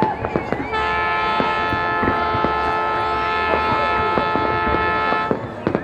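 Fireworks bursting with scattered bangs and crackles, while a loud steady horn sounds a single sustained blast of several tones together. The horn starts just under a second in and cuts off sharply about a second before the end.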